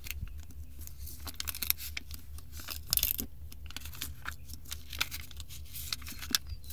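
Sticky rubber tire-plug strip being peeled off and handled, making irregular crackling and tearing sounds, with a louder cluster about three seconds in.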